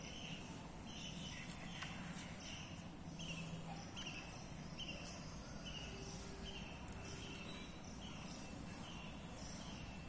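Outdoor background ambience: a short chirping call repeats about every two-thirds of a second over a faint, high insect hiss.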